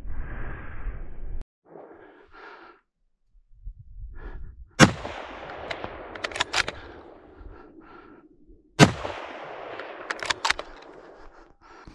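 Gunshots at a wild boar hunt: one shot about five seconds in, a quick string of shots around six and a half seconds, another single shot near nine seconds and a few more just after ten, each trailing off in a long echo.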